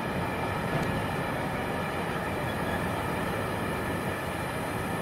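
Freight train of bogie hopper wagons rolling past at steady speed: a continuous noise of steel wheels running on the rails, with no distinct rhythm of joints.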